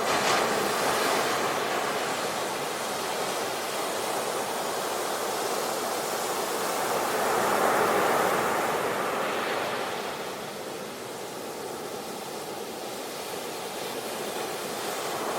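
Sea surf: a steady rushing of waves that swells as a wave breaks near the start and again about halfway through, easing between them.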